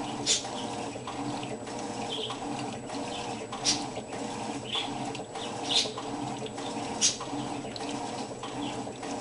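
Electrolux washing machine running mid-cycle: a steady motor hum with water sloshing in the drum, broken by four sharp splashes at uneven intervals.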